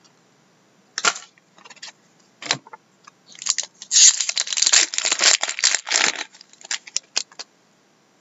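A hockey card pack's wrapper being torn open and crinkled: a few short rustles, then a dense stretch of tearing and crackling about four to six seconds in, ending in a few light clicks and rustles.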